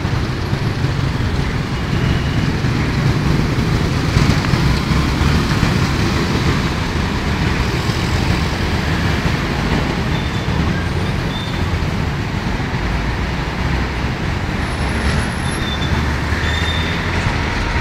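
Busy city road traffic: cars, taxis and motorbikes driving past, a steady, dense rumble of engines and tyres.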